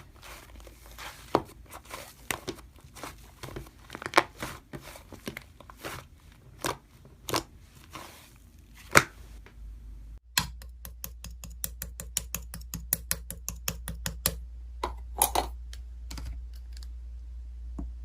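Slime being pressed and played with by hand, giving irregular crisp clicks and crackles. About ten seconds in the sound cuts to a different clip with a faster, denser run of clicks and a steady low hum underneath.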